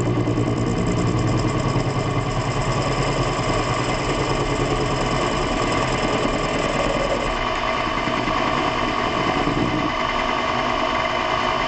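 Metalworking machine tool running steadily under power, its motor and drive giving a constant hum of stacked tones with a fine, fast vibration.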